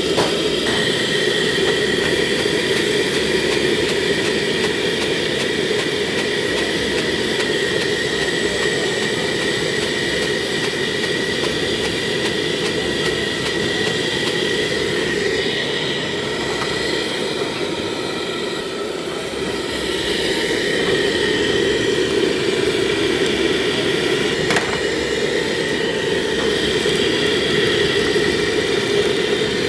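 Steady mechanical drone with a faint high, even whine.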